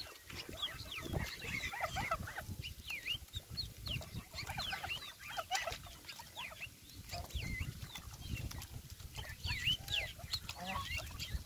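A flock of domestic geese with their goslings calling while they feed: many short, high, overlapping peeps and chirps, over a low rumble.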